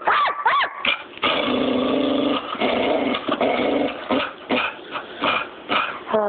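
Dog barking and growling: a few high rising-and-falling yips at the start, a long rough growling bark from just after a second in, then several short separate barks.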